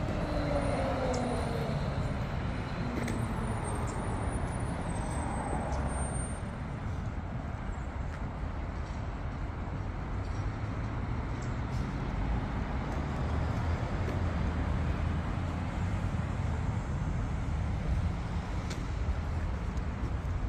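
Steady road traffic noise with a low rumble. In the first couple of seconds a vehicle passes, its sound falling in pitch.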